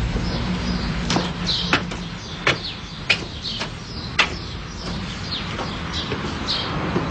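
About five sharp footsteps on stone steps, unevenly spaced over the first few seconds, with birds chirping throughout.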